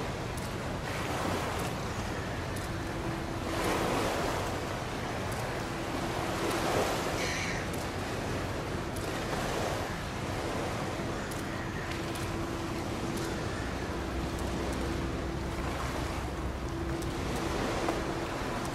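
Wind buffeting the microphone and water washing, swelling a few times in gusts, over a steady low hum from the passing cruise ship.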